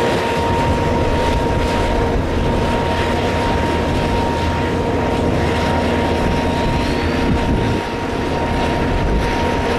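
Diesel pickup truck engines idling in a steady drone, with a constant whine over the rumble.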